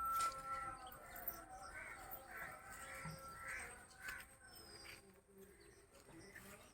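Crows cawing: a run of short, repeated caws over the first few seconds, fairly faint.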